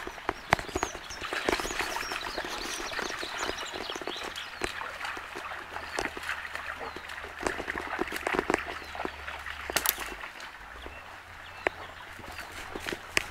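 A Labrador–Belgian Shepherd mix wading and splashing through a shallow stream, with many sharp splashes over the steady babble of the running water. Small birds chirp in the first few seconds.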